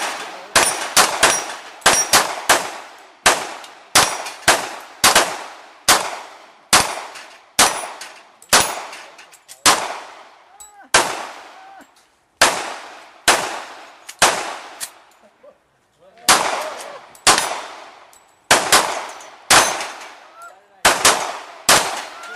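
Rapid gunshots during a timed steel-plate shooting run, roughly two shots a second, each followed by a short echo. There is a brief pause about twelve seconds in and a longer one about fifteen seconds in, then the shooting resumes.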